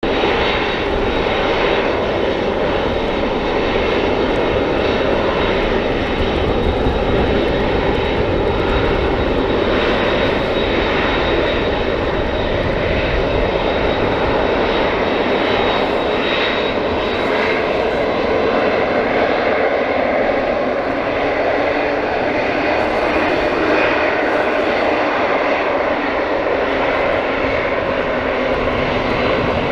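Boeing 747-8F's four GEnx-2B turbofan engines running at taxi power as the freighter rolls along the taxiway: a steady jet rumble with a thin high whine held throughout.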